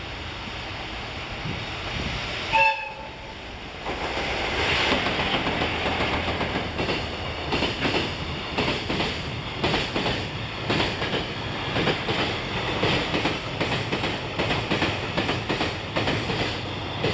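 EF66 electric locomotive's horn sounds one short blast about two and a half seconds in. Then the pair of EF66 locomotives and their container wagons pass close by, with a steady rhythmic clatter of wheels over the rail joints.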